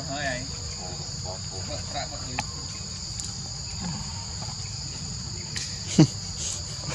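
Steady, high-pitched chorus of insects, with faint wavering squeaks from a baby macaque in the first two seconds. A short loud sound with a quick falling pitch about six seconds in.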